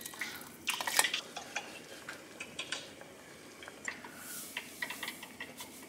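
Metal kitchenware clattering: a stainless bowl knocks against the rim of a cooking pot in a loud cluster about a second in. Scattered light clinks of a metal spoon against a stainless mixing bowl follow.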